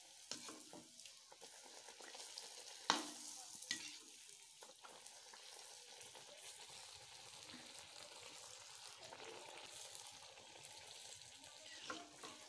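Hot oil sizzling steadily in a kadai as a pitha deep-fries. The metal slotted spoon turning it knocks and scrapes against the pan a few times, loudest just under three seconds in.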